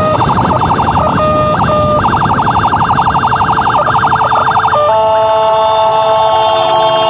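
Electronic emergency siren switching modes: a rapid warble, a brief steady tone, a longer rapid warble, then a steady held tone from about five seconds in, over steady engine and wind noise from a moving motorcycle.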